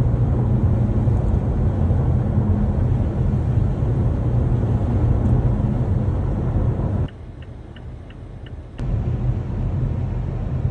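Steady low rumble of a car being driven. It drops away suddenly for a little under two seconds near the end, leaving a few faint ticks, then the rumble returns.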